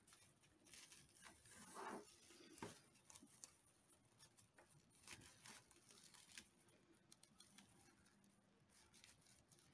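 Near silence with faint rustling and a few soft clicks from hands handling and stitching a hat crocheted from paper rope; the loudest rustles come about two seconds in.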